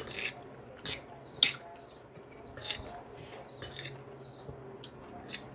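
Metal spoon and fork clinking and scraping against glass bowls while eating: a few short, sharp clinks, the loudest about a second and a half in, between softer scrapes.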